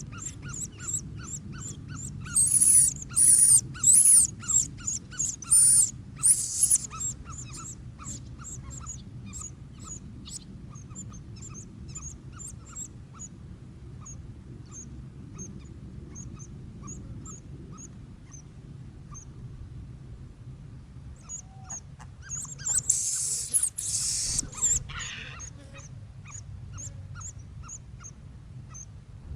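Hoopoe chicks calling: a run of short, high peeps, about two or three a second, broken twice by loud, harsh hissing screeches, once from about 2 to 7 seconds in and again near 23 seconds.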